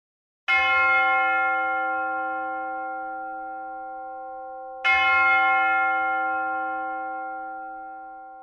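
A church bell struck twice, about four and a half seconds apart, each stroke ringing on and slowly dying away.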